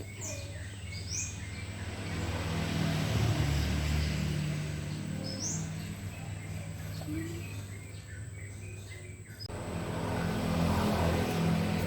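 A vehicle engine runs at a steady low pitch under a rushing noise that swells and fades, with a few short bird chirps over it. The sound cuts out abruptly about nine and a half seconds in, then comes back.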